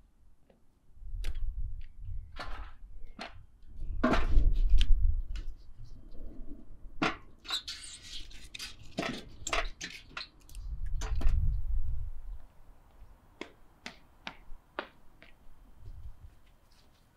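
Split firewood logs being dropped into a steel drum stove, knocking and clunking against the metal and against each other in a run of sharp irregular knocks, with several spells of low thudding.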